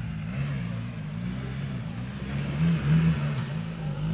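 Off-road vehicle's engine revving up and down over and over, its low pitch rising and falling about twice a second, louder about three seconds in.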